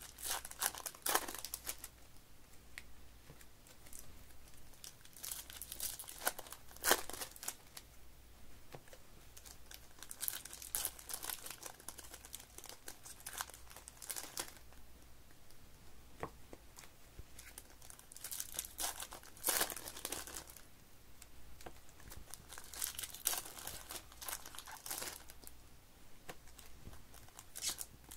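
Foil wrappers of 2023 Topps baseball card packs being torn open and crinkled by hand, in irregular bursts of crackling.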